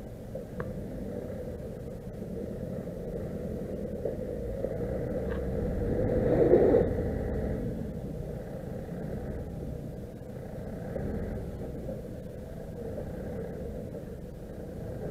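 Vehicle engines running at low revs in the snow, a steady low rumble that swells to a brief louder peak about six and a half seconds in, then settles back.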